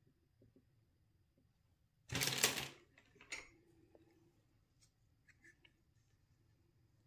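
Small plastic toy kitchen pieces handled with gloved hands: a loud, short rasping clatter about two seconds in, a smaller one just after, then a few light plastic clicks and taps.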